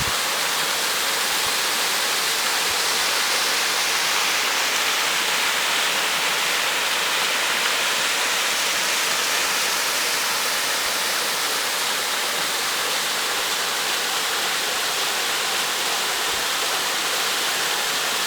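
Steady, unbroken rush of a large waterfall crashing down.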